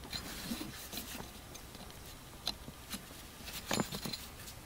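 Faint handling sounds: gloved hands rustling and light plastic clicks as a blower motor resistor and its wiring connector are handled, with a few louder clicks near the end as the connector is pushed onto the resistor.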